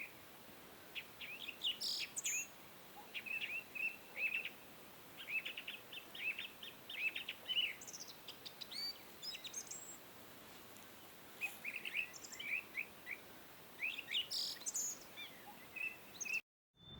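Small birds chirping in quick clusters of short high notes every second or two, over a faint steady hiss. The sound cuts out abruptly near the end.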